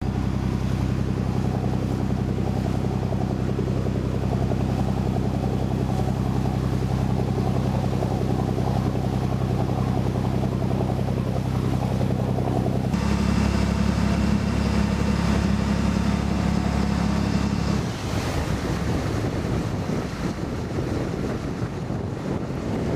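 Boat engine running steadily with a low hum. Its note changes abruptly about halfway through and drops away a few seconds before the end, leaving wind on the microphone and the wash of choppy water.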